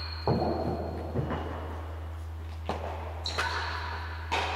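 Real tennis ball being struck and hitting the court walls and floor during a rally: a few sharp knocks one to two seconds apart over a steady low hum.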